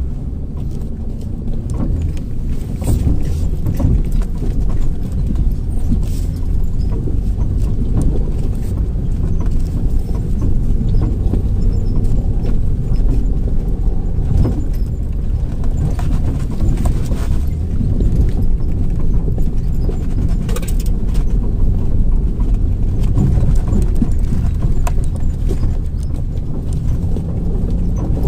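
Jeep Liberty (KJ) crawling up a rough, rocky dirt track, heard from inside the cab: a steady low engine and drivetrain rumble with irregular knocks and rattles as the tyres and suspension go over stones.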